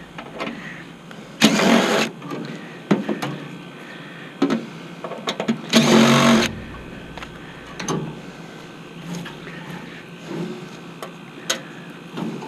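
Hand work on the sheet-metal cabinet of an old Bard package heat pump being taken apart: scattered clicks and knocks, with two short, loud rasping noises, one about a second and a half in and one about six seconds in.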